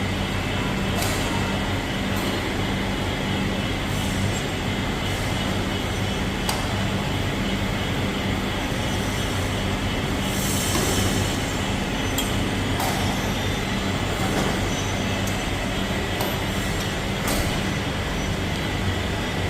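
Steady industrial machinery noise from a CED coating line, with a constant low electrical hum and a few scattered metallic clicks.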